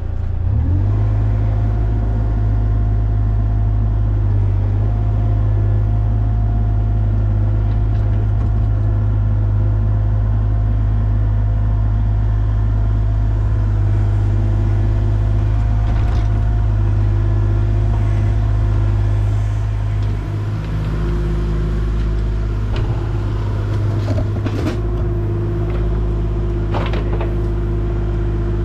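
Diesel engine of heavy equipment running steadily under load, with a few faint knocks near the end. The engine note shifts about twenty seconds in.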